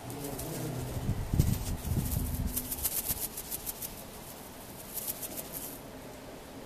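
A small toy rattle is shaken in quick bursts twice: a long run of rattling, then a shorter one about five seconds in. A low rumble sits under the first run.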